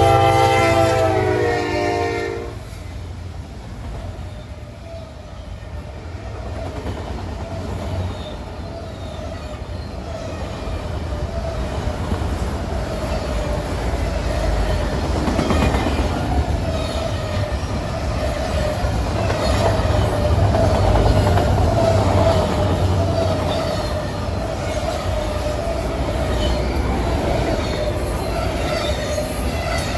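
A train's horn sounds a multi-note chord that cuts off about two seconds in. Then the train rumbles past with wheels clicking over the rail joints, and a steady high wheel squeal comes in partway through and continues.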